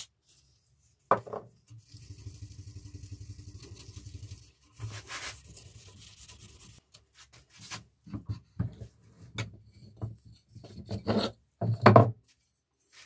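Steel knife blade clamped in a vise being rubbed by hand with a folded abrasive pad in fast, even strokes. This is followed by a run of irregular knocks and clatter, loudest about a second before the end, as the blade is handled and freed from the vise's wooden jaw blocks.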